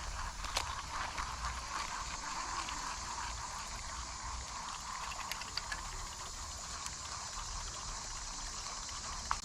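Fishing reel being cranked to retrieve a buzz bait, with a steady watery churning from the lure across the surface.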